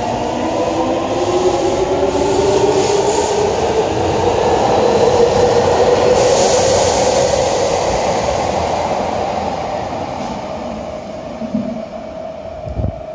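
Subway train departing from an underground station: the traction motors whine, rising in pitch as it accelerates. The rolling rumble of the cars then fades away as the last car leaves the platform.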